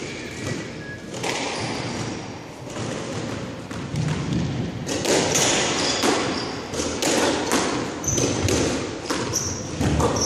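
A squash rally: the ball cracks off racquets and smacks the front wall in a run of sharp hits, with footsteps and short sneaker squeaks on the hardwood court floor.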